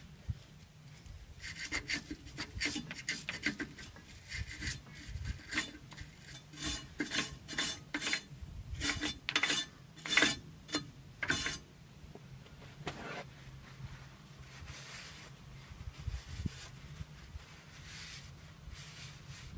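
Hand scraping on metal: a run of quick rubbing strokes, about two or three a second, that stops about twelve seconds in. It is followed by a single longer scrape and a few fainter rubs.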